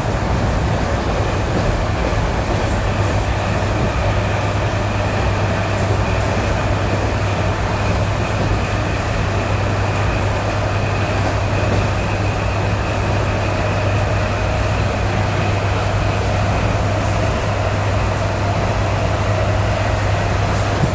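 ED9E electric multiple unit running steadily at speed, heard from inside the car: continuous rolling and running noise with a low steady hum and a faint steady whine.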